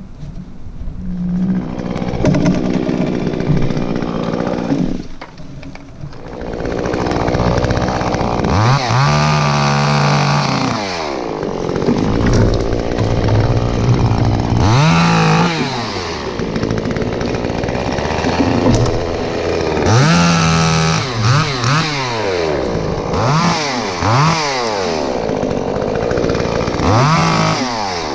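Chainsaw engine running, then revved up and down over and over from about a third of the way in, its pitch sweeping up and dropping back each time.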